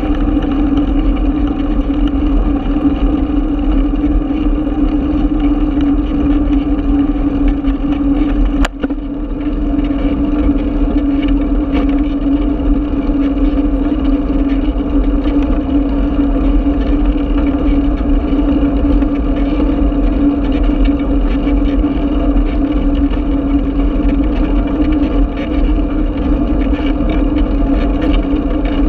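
Steady droning hum and rumble of a bicycle ride picked up by a camera mounted on the bike, with road vibration and wind noise on the microphone. A single sharp click about nine seconds in.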